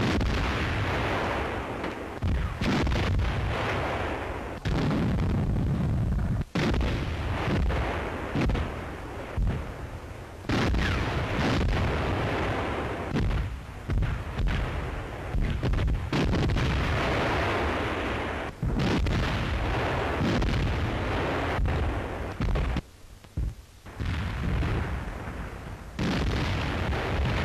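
Artillery guns firing and shells exploding, one heavy blast after another, each trailing off into the next, with a brief lull near the end.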